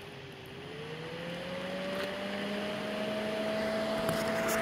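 Electric radiator cooling fan from a Tata Indica, powered straight from a 12-volt battery, spinning up: a motor whir that rises in pitch over the first couple of seconds, then holds steady while growing louder. The fan motor is working. A few light clicks come near the end.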